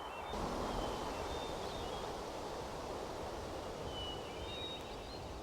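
Meadow ambience: a light breeze blowing steadily through grass, with a few faint, short bird chirps in the distance.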